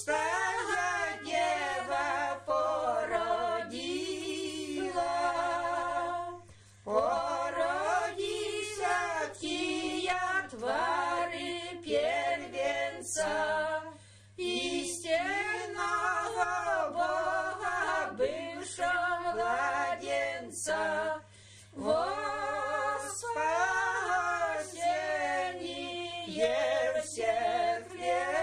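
Women's choir singing a Christmas carol a cappella, in long phrases broken by brief pauses about every seven seconds.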